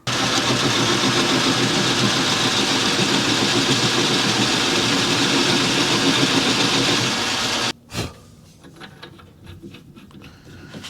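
Small metal lathe running steadily, then stopping abruptly about eight seconds in, followed by a single sharp knock.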